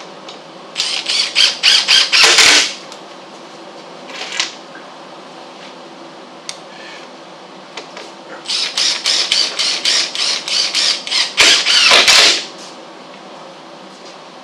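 Power impact driver driving screws into the wooden tailgate boards, twice: a rapid hammering rattle for about two seconds near the start, and again for about four seconds from about eight seconds in.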